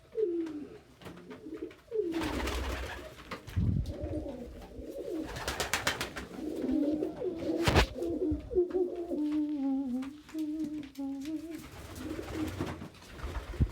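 Domestic pigeons cooing in a small loft: a run of low, wavering coos, broken by a couple of brief noisy bursts and a sharp click about eight seconds in.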